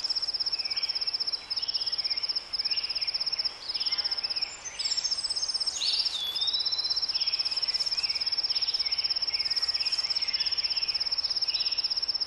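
A cricket's fast, high-pitched trill runs on, broken by a few short pauses in the first half. Scattered bird calls sound over it, among them a clear whistle sliding downward about six seconds in.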